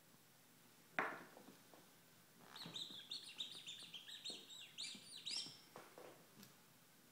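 Rubber squeaky duck squeaking over and over, a quick run of short, high squeaks lasting about three seconds as a Great Dane plays with it. A single sharp, sudden noise comes about a second in.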